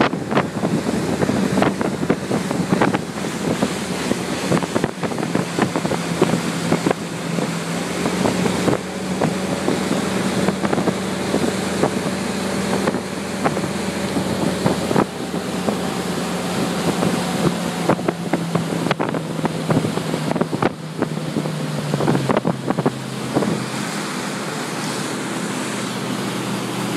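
Motorboat engine running steadily at towing speed, with the rush of its wake and spray and wind buffeting the microphone, and frequent brief thumps. The engine note drops in pitch near the end as the throttle comes back.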